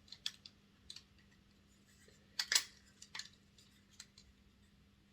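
Small plastic clicks and taps as a model locomotive body is handled and pressed onto a chassis to test the fit, with the loudest pair of clicks about halfway through.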